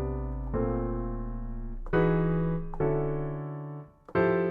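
Piano sound on an Akai MPC keyboard playing four full chords one after another, each ringing and fading. The chords are triggered in chord latch mode, where one key plays the whole latched chord.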